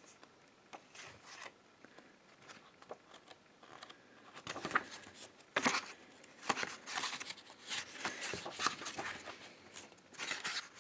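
Pages of a thick bound book being leafed through by hand: paper rustling and swishing in a string of short bursts, with a couple of sharper flaps as pages fall over, about five and six seconds in.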